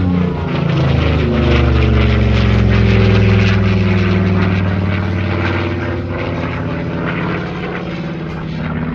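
Yak-3U's Pratt & Whitney R-2000 fourteen-cylinder radial engine and propeller at full power as the aircraft passes, loudest about three seconds in. The engine note falls in pitch as it goes by, then holds steady.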